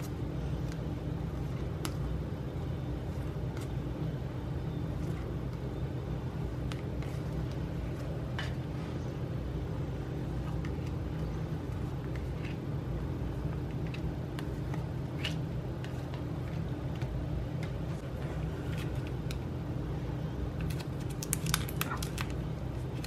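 Paper photocards set down one by one on a table, with faint scattered taps over a steady low hum. Near the end, crinkling of a plastic-wrapped card pack being handled.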